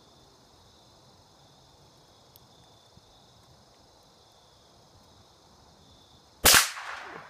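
A single shot from a Ruger American .22 LR bolt-action rifle about six and a half seconds in: one sharp crack with a short echoing tail. Before it, only crickets chirping steadily.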